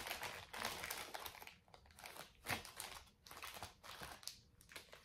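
Packaging crinkling in irregular spurts as a small bag is handled and opened to get at a piece of jewelry.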